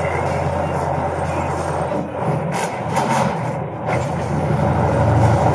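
Heavy truck's diesel engine running under way at highway speed, with its EGR valve unplugged, heard as a steady drone inside the cab. A few brief noises come about two and a half to three seconds in, and the drone grows a little louder near the end.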